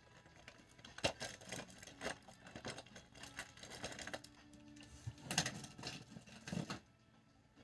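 Irregular rustling and clattering as small packaged items and packaging are handled and moved in and out of a cardboard box, with a few sharper clicks.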